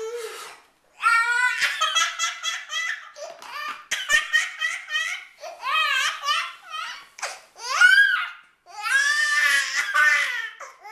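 A 13-month-old baby laughing in about five bouts of quick repeated pulses, high-pitched, with short breaks for breath between them.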